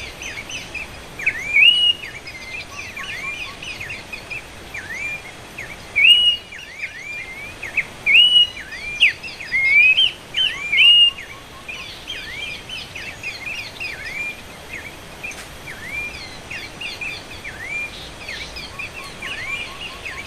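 Pelanduk semak babblers calling: a rapid stream of short whistled notes that dip and rise, several overlapping, with a run of louder notes in the middle.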